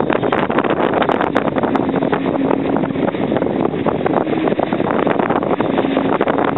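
Wind buffeting the microphone over water rushing and splashing along the hull of a small sailing cruiser under way. A faint steady hum comes and goes underneath.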